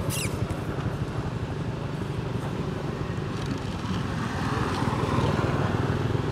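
A motorcycle engine idling, a steady low running sound that grows a little louder after about four seconds. A brief high falling squeak comes right at the start.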